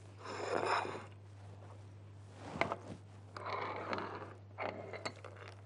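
Gloved hands working food on a serving platter: a few short scraping and rustling noises and one sharp click, over a steady low electrical hum.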